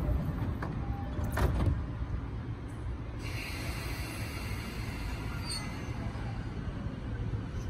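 JR commuter electric train's sliding doors closing, with a sharp thump about a second and a half in, over the low steady rumble of the standing train. A sudden hiss of air starts about three seconds in and lasts some two seconds, as the train gets ready to depart.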